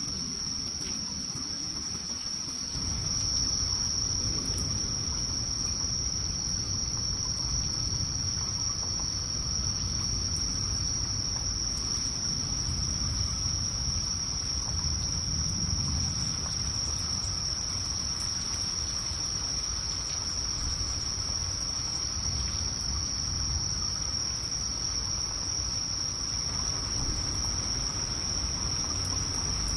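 Night insects giving a continuous high, steady trill. A low rumbling noise comes in underneath about three seconds in.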